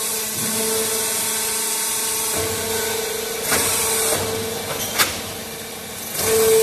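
Automatic clay interlocking brick-making machine running: a steady hum and whine, with louder surges of hiss about three and a half seconds in and again near the end, and a single sharp clack about five seconds in.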